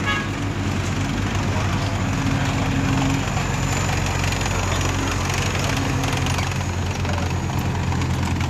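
OT-810 half-track's air-cooled diesel engine running steadily as the vehicle drives slowly past, a little louder a couple of seconds in.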